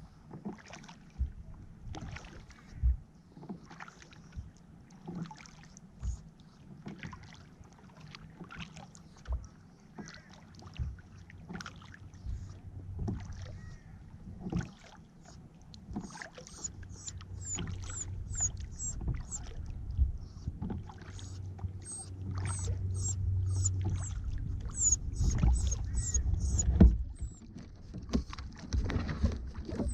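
Kayak paddling: the paddle blades dipping and splashing about once a second, with the low rumble of the water against the hull growing in the second half. From about halfway, quick runs of short, high squeaky chirps come in and out.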